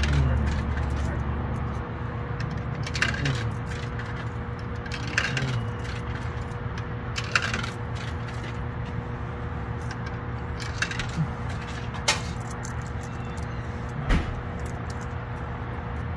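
Coins fed one at a time into a soda vending machine's coin slot: short metallic clinks every second or two, over a steady low hum.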